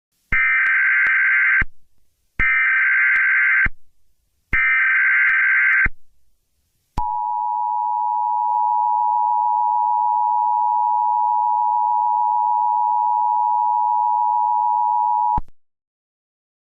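Emergency Alert System SAME header: three short bursts of warbling digital data tones, each about a second and a half long, then the two-tone EAS attention signal held steadily for about eight seconds before cutting off suddenly. It is the sequence that announces an emergency broadcast message.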